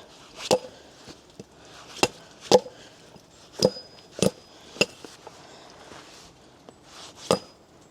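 A chisel being struck into a wooden log to cut a notch: about eight sharp, irregular blows, a few of them followed by a short high metallic ring.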